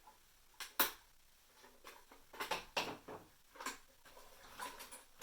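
Scattered sharp clicks, taps and scrapes of hard plastic being handled, as fingers work at the body and doors of a small-scale RC model truck. The loudest click comes about a second in, followed by a cluster of clicks a little later.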